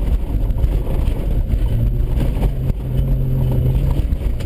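Holden VN Commodore's engine running under load, its pitch rising and falling as it is driven across a rough paddock, with irregular knocks and rattles from the car bouncing over the ground.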